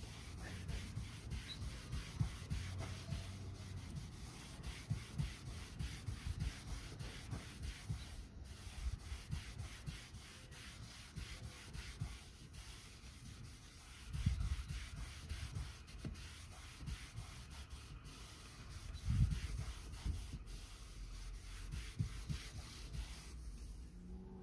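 A sponge scrubbing back and forth over a vinyl boat seat: a steady, uneven rubbing, with a couple of louder low bumps about halfway through and again a few seconds later.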